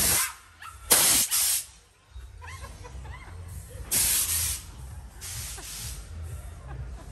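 Pneumatic air-blast scare effects in a haunted house, firing short bursts of hissing air several times; the loudest comes about a second in, with weaker ones later.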